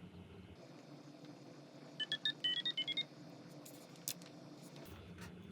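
A quick run of about ten short electronic beeps at changing pitches, like a little tune, lasting about a second starting two seconds in, followed by a single click.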